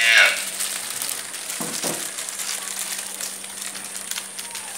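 Plastic wrapping crinkling and crackling as cloth packets in plastic covers are handled and passed over. Right at the start comes a brief, loud, high sound that falls in pitch.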